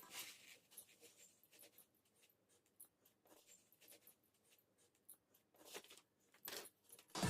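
Faint, scattered light scratches and taps of a brush pen on paper, in near silence. Music cuts in abruptly at the very end.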